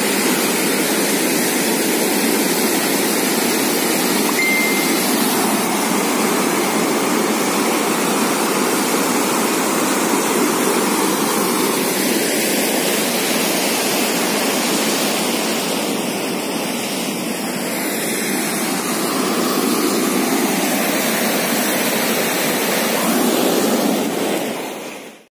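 Muddy floodwater rushing and churning along a concrete channel wall: a loud, steady rushing of a torrent in spate.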